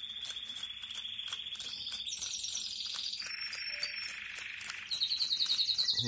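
Cage birds singing in long rolling trills, with a run of quick repeated falling notes near the end. Underneath, faint rasping strokes of broccoli being grated on a small hand grater.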